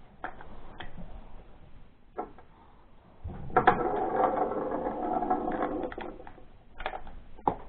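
Batteries being snapped into the battery holder of a Teknetics T2 Plus metal detector: scattered plastic clicks and rattles, with a steady buzzing for about three seconds in the middle.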